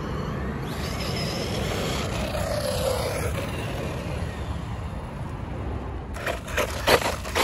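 Wiaorchi 1/16-scale brushless RC car driving on concrete: its motor gives a whine that rises and then falls over a steady low rumble. Several sharp knocks come near the end.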